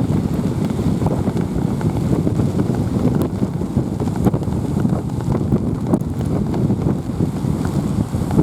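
Strong wind buffeting the microphone, a steady low rumble, over heavy surf from typhoon swell breaking on the shore.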